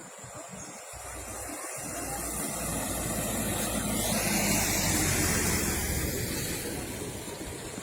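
A motor vehicle passing close by: its noise swells to a peak about halfway through and then fades away.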